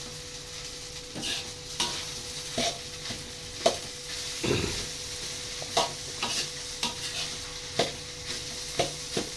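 Fried rice sizzling in a pan with a steady hiss, stirred and turned with a spatula that scrapes and knocks against the pan about once a second.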